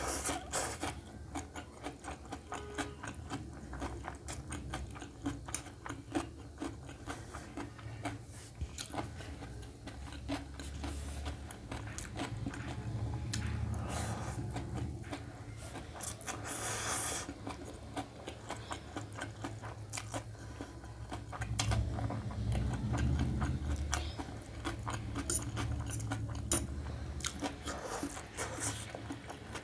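Close-up mouth sounds of a person eating stir-fried noodles: wet chewing and many small mouth clicks, with noodles slurped in.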